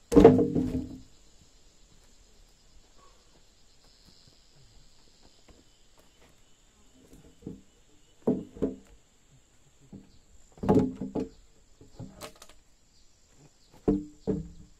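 A loud knock right at the start, then scattered groups of shorter knocks and thuds through the rest, over a faint steady high insect drone.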